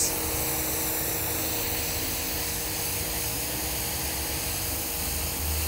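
Pressure washer jet spraying onto asphalt pavement: a steady, unbroken hiss of water over a low, even hum from the machine.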